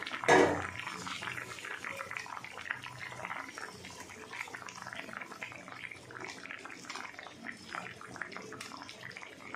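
A pan of curry gravy bubbling on the boil, a steady crackle of small pops. There is a brief louder burst of noise just after the start as fried koi fish go in.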